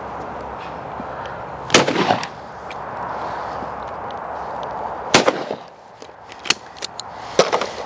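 Two shotgun shots from a Yildiz Pro over-and-under at clay targets, about three and a half seconds apart, each a sharp crack with a short echo. Fainter sharp cracks and clicks follow near the end.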